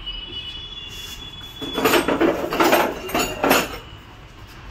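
Metal tools and scooter parts clattering as they are handled, a busy run of clinks and knocks starting about two seconds in and lasting about two seconds.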